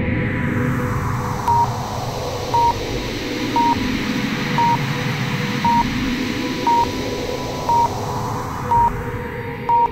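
Electronic countdown beeps, one short high beep each second, nine in all, over a whooshing noise sweep that falls in pitch and then rises again, with a steady tone underneath.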